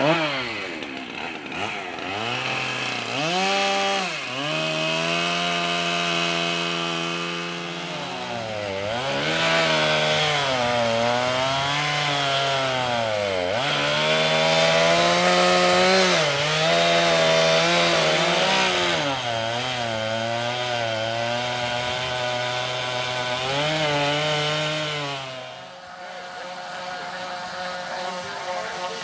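Two-stroke chainsaw cutting into a block of wood for carving, its engine pitch repeatedly dropping as the chain bites and rising again as it frees. Near the end the saw stops and a steadier, quieter power tool runs.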